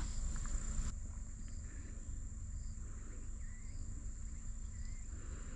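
Quiet outdoor ambience: a thin, high insect trill that stops about a second in, a few faint short chirps, and low wind rumble on the microphone.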